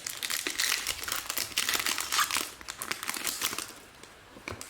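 Wrapper of a 2020 Select Euro soccer trading-card pack crinkling and tearing as it is ripped open by hand, going quieter near the end.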